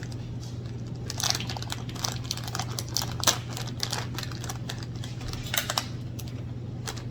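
Small birdseed (canary mix) poured into a plastic-bottle bird feeder, the seeds rattling in a quick run of small clicks from about a second in until near the end, over a steady low hum.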